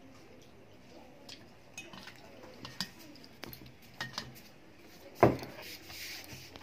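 A metal utensil clinks and scrapes in a stainless-steel bowl of noodles, with small scattered clicks. About five seconds in comes one loud knock.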